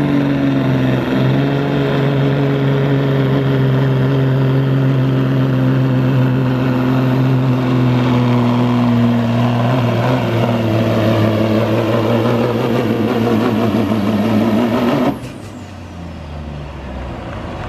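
Kenworth semi truck's diesel engine under full load, pulling the weight sled with a heavy, steady note. The pitch slowly falls, then climbs again. About fifteen seconds in, the throttle drops off suddenly and the engine falls back much quieter.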